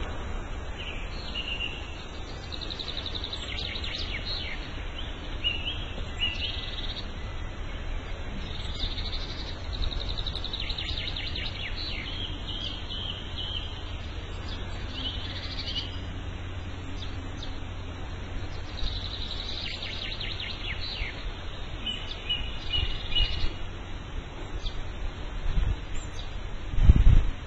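Several songbirds chirping and trilling in repeated short phrases over a steady low rumble. A loud low thump comes near the end.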